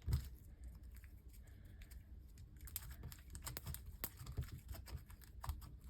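Soft, sticky slime being kneaded and mixed by hand with cloud cream, giving irregular small clicks and pops.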